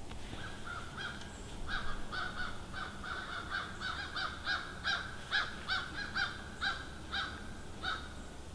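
Crows cawing in a quick run of short caws, two or three a second, starting about a second in and going on until near the end.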